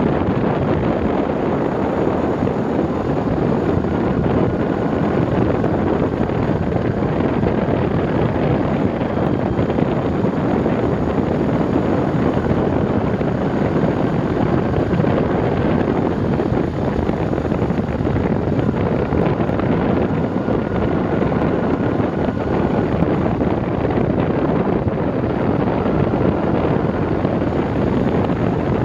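Steady wind rush buffeting the microphone of a moving vehicle, mixed with the vehicle's running and road noise. The noise stays level throughout, with no separate events.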